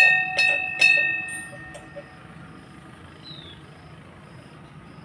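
Hanging Hindu temple bell rung three times in quick succession, its ringing dying away over about two seconds.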